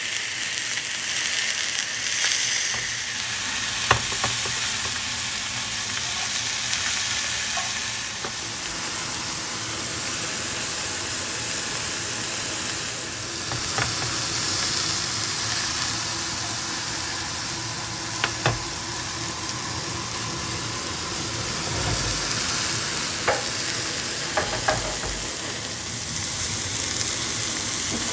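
T-bone steak frying in a hot pan: a steady sizzle of fat and juices, with a few brief sharp clicks or pops scattered through.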